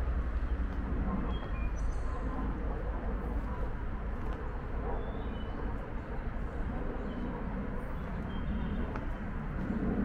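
Steady rumble of road traffic, with a few short, faint bird chirps over it.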